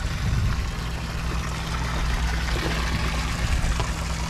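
Water trickling and splashing over a steady low mechanical hum from a moored motor yacht.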